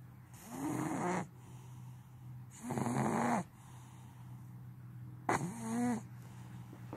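Snoring: three loud, pitched, wavering snores about two and a half seconds apart, one with each breath, over a faint steady low hum.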